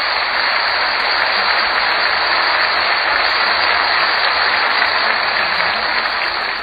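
Steady applause from a large audience, heard on a muffled old recording.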